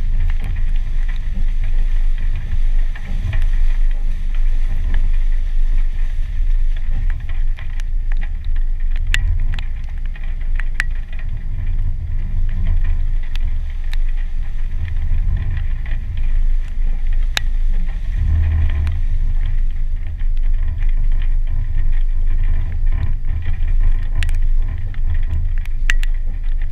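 A 2015 Jeep Wrangler Sport's 3.6-litre V6 and drivetrain running as it drives along a muddy trail, heard as a steady low rumble through a hood-mounted camera, with sharp ticks now and then.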